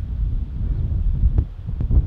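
Wind buffeting the microphone: an uneven low rumble, with two faint clicks a little past the middle.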